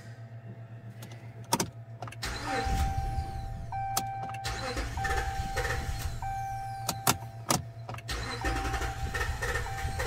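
A 5.7L Hemi V8 being cranked over by its starter, with a short break about eight seconds in before cranking resumes. Cylinder one has no compression. A warning chime beeps repeatedly over the cranking.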